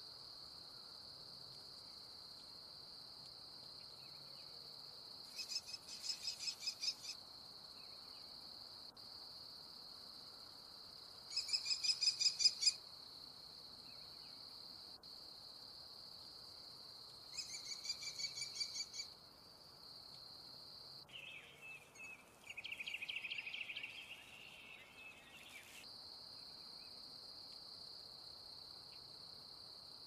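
American kestrel giving three bursts of its rapid, evenly repeated high 'klee-klee-klee' call, each lasting about a second and a half, over a steady high-pitched insect trill. After the third burst there is a rougher, longer high call or chatter lasting several seconds.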